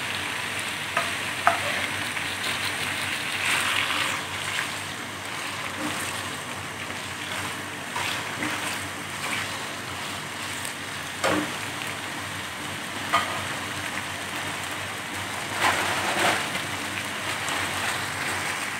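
Small boneless chicken pieces sizzling in hot oil in a nonstick wok, just added to the pan. A wooden spatula now and then scrapes and taps against the pan as the pieces are turned.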